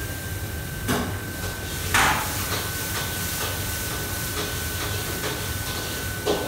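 Commercial kitchen noise: the steady rush of the range hood and wok burners with a faint steady whine, broken by three sharp knocks of cookware about one, two and six seconds in, the one at two seconds the loudest.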